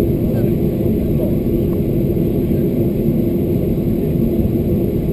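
Steady cabin noise of a Boeing 737-400 in motion: the CFM56 jet engines and airflow make a constant deep rumble with a steady hum, neither rising nor falling.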